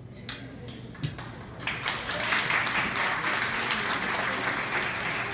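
Audience applause: a few scattered claps, then the crowd breaks into steady clapping a little under two seconds in.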